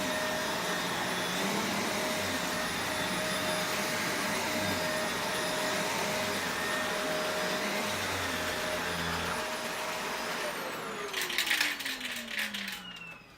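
Shark Rotator Professional Lift-Away upright vacuum running steadily, then switched off about ten seconds in, its motor whine falling in pitch as it spins down. A rapid clatter of clicks and knocks sounds while it winds down.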